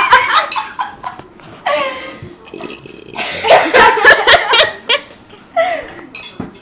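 People burping loudly several times, with laughter between the burps.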